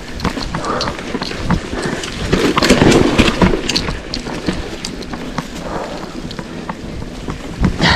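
Mountain bike riding over a rough dirt trail: wind rumbling on the microphone with many sharp clicks, knocks and rattles from the bike over the ground, loudest about two and a half to three and a half seconds in.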